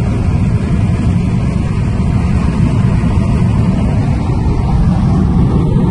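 Steady low road and wind noise inside a car cabin travelling at about 160 km/h.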